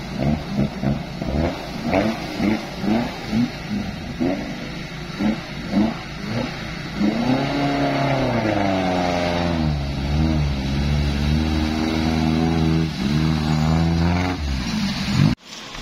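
Modified Daihatsu Taruna 4x4's engine revving as it drives through deep mud and water: first in short throttle surges about two a second, then a longer rev whose pitch rises and falls. The sound cuts off suddenly near the end.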